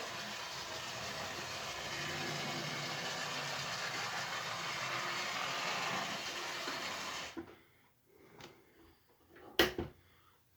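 HO scale diesel switcher model locomotive running on the track: a steady whir of its small DC motor and wheels that cuts off about seven seconds in. Then come a couple of faint clicks and one sharp click.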